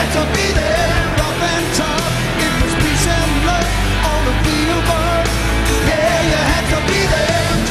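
Rock song with singing over bass and drums.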